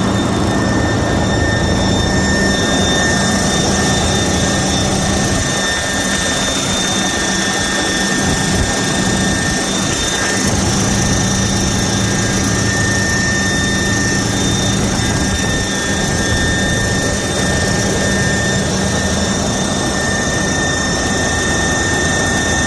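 Detroit DD15 inline-six diesel running in a Freightliner Cascadia, with a steady high-pitched turbo whine and hiss over the engine note. The noise comes from the turbocharger, whose turbine wheel is damaged inside.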